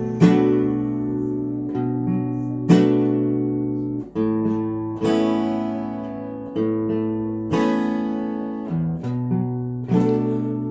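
Acoustic guitar playing the instrumental break of a song, with chords struck every two to three seconds and left to ring and fade.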